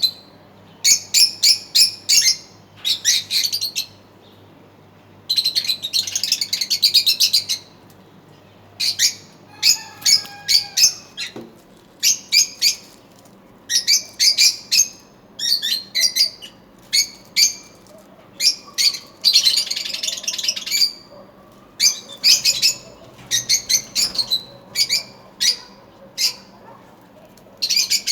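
Lovebirds chirping in high-pitched bursts of rapid calls, a cluster every second or two with short pauses between.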